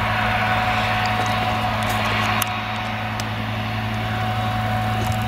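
Claas Jaguar forage harvester working at full throttle while chopping whole-crop cereal for silage: a steady engine drone with a steady high whine over it.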